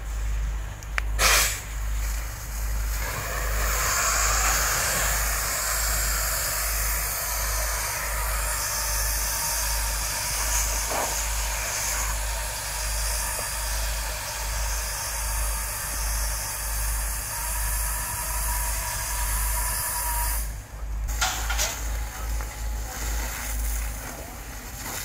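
Fire hose jet spraying water onto a burning thatched roof, a steady loud hiss that sets in about three seconds in and drops away about four seconds before the end, over a constant low rumble. A short sharp crack about a second in is the loudest moment.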